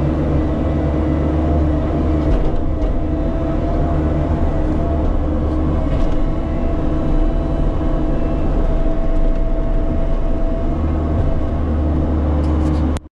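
Bobcat E50 mini excavator's diesel engine running steadily while the machine works, with a higher steady whine over it for much of the time and a few light clicks. The sound cuts off abruptly near the end.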